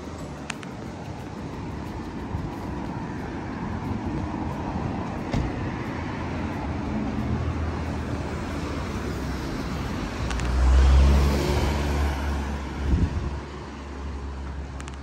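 Road traffic: a car drives past close by, its rumble swelling to a peak about eleven seconds in and then fading.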